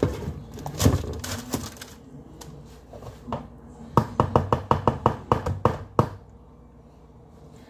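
A paper sheet rustling and crinkling as it is spread and smoothed over a baking sheet. About four seconds in comes a quick run of about ten light taps over two seconds, then it goes quiet.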